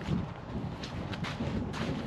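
Footsteps of shoes walking on a muddy forest trail, a step every half second or so, with a low rumble of wind on the microphone.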